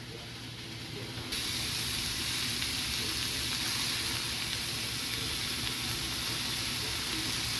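Cod fillet searing in hot oil in a pan on the stovetop, sizzling steadily; the sizzle turns suddenly louder and brighter about a second in.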